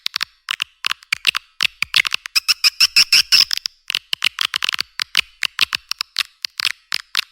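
Edible-nest swiftlet call track, a lure sound for swiftlet houses: rapid dry clicks and short chirps in quick irregular trains, crowding into a dense chatter about two seconds in. It is filtered so that nothing sounds below the mid range.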